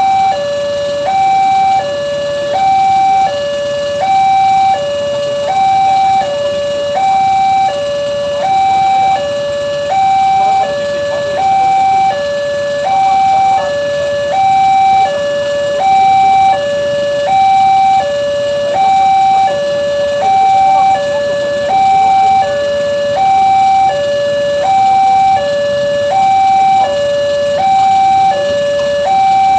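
Indonesian railway level-crossing warning alarm sounding continuously: an electronic two-tone signal alternating between a higher and a lower tone about once a second, warning that a train is approaching and the gates are down.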